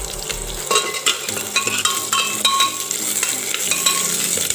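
Sliced onions sizzling in hot oil in a pressure cooker while a metal spoon stirs them. From about a second in, the spoon clinks and scrapes against the pot several times, each clink ringing briefly.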